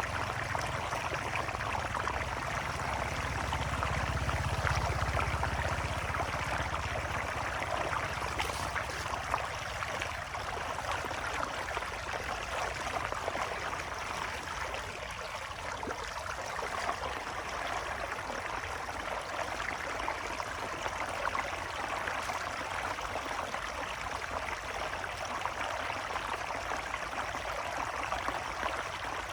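Floodwater rushing steadily as it drains away, a continuous splashing flow, with a low rumble underneath that fades out after about seven seconds.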